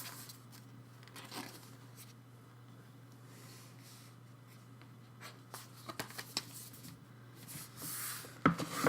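CD album packaging and lyric pages being handled: faint rubbing and scattered soft clicks, then a louder rustle and a few sharp clicks near the end.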